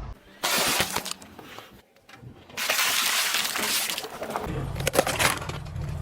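Things being crushed under a car tyre: two bursts of crunching and cracking, breaking noises. The car's engine running comes in near the end.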